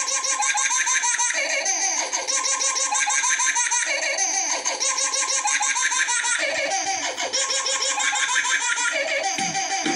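Dance music playing, with a high, quickly repeating vocal line of short chirping notes.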